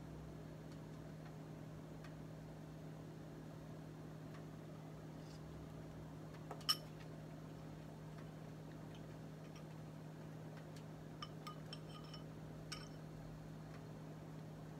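Steady low hum, with one sharp clink of a utensil against kitchenware about seven seconds in and a few lighter clinks near the end, each ringing briefly.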